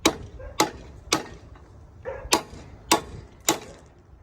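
A socket ratchet turning the bushing puller's screw, clicking sharply about twice a second with one short pause, as the stuck excavator bushing is drawn out.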